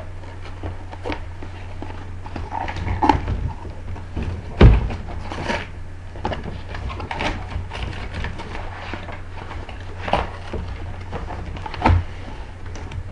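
Rustling and knocking as a toy blaster's cardboard box and packaging are handled and pulled at, with several irregular thumps, the loudest about four and a half seconds in and another near the end, over a steady low hum.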